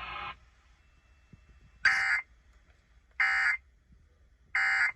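Emergency Alert System end-of-message data bursts: three short, identical bursts of buzzy, screechy digital data tones about a second and a half apart, signalling the end of the alert.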